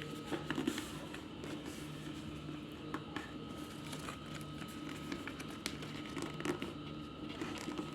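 A sheet of paper being folded and creased by hand: light rustling and crinkling with scattered small sharp clicks. A steady low hum sits underneath.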